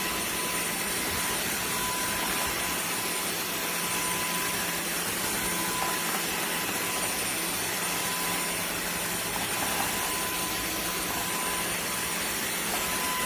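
Cordless wet-dry floor vacuum running steadily: an even motor whine over a constant hiss of suction.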